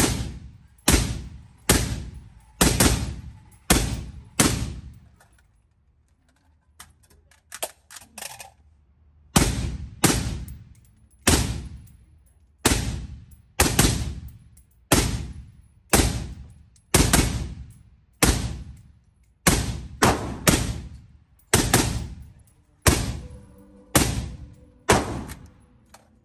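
Suppressed short-barreled rifle firing through a JK Armament HD Steel solvent-trap suppressor, shot after shot at about one a second. Each shot rings on in the range's echo. There is a pause of a few seconds near the start, with a few faint clicks, before the firing resumes and runs on steadily.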